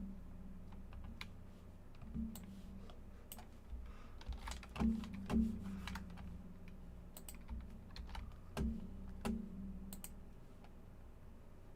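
Typing on a computer keyboard: irregular clicks and key taps, with a few louder taps in pairs about halfway through and again near the end.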